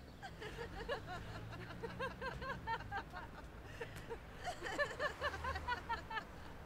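Many overlapping voices chattering and laughing in short rising-and-falling bursts, busier from about four seconds in, over a low steady traffic rumble.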